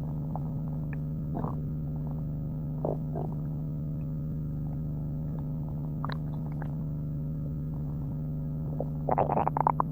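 A man's stomach growling: a few short, scattered gurgles, then a louder run of rapid bubbling gurgles near the end. A steady low hum runs underneath.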